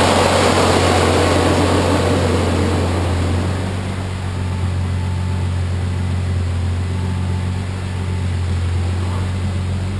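Turbocharged BMW E46 M3 inline-six running on a chassis dyno. It is loud at first and dies down over the first four seconds to a steady low drone.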